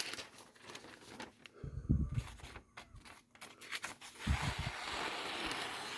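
A freshly sharpened kitchen knife being handled and test-cut: two soft low knocks, then a steady slicing hiss for about two seconds near the end.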